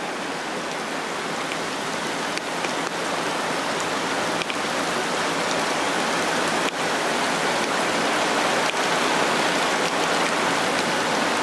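Floodwater rushing and churning into a storm drain, mixed with heavy rain; a steady rush that grows gradually louder.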